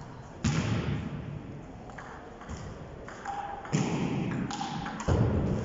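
Table tennis point: the ball is served and knocked back and forth, clicking off paddles and table, with three louder thuds that echo in a large hall, the first about half a second in and the others near the end.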